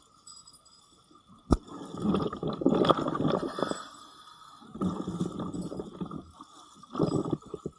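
Muffled water sloshing and gurgling around an underwater camera housing, coming in bursts. There is one sharp knock about one and a half seconds in.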